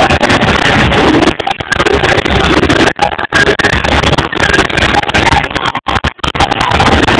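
Loud parade din picked up by a phone's microphone: music mixed with crowd noise, muddy and overloaded, with the sound cutting out briefly several times.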